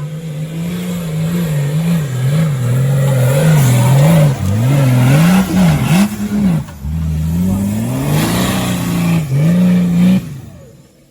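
Off-road 4x4's engine revving up and down over and over as it works under load, the pitch dipping and climbing several times in quick succession. It fades out near the end.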